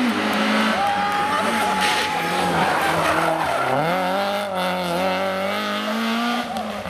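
Rally hatchback's engine revving hard through a hairpin, with tyres squealing and skidding. The revs drop briefly about three and a half seconds in, then climb again.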